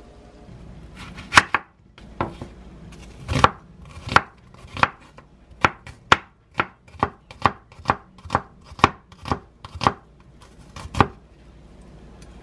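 Chef's knife slicing an onion thinly on a wooden cutting board: a run of sharp knocks on the board, about two a second, starting a second and a half in and stopping about a second before the end.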